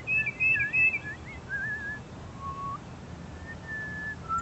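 A woman whistling to call cardinals: a quick run of warbling notes that slide up and down, then a few separate, longer notes, one low and rising, one held steady.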